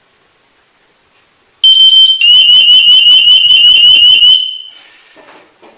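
Household gas leak detector alarm set off by butane gas from a lighter. About a second and a half in, it gives a short high beep, then a loud, high-pitched, fast-warbling alarm for about two seconds that dies away.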